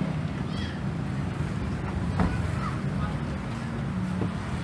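Busy street-stall background: a steady low rumble of traffic with indistinct voices, a couple of brief high chirps, and a single sharp knock about two seconds in.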